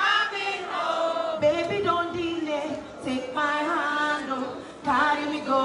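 Live concert singing: several voices singing together over backing music, the singer's microphone voice joined by the crowd.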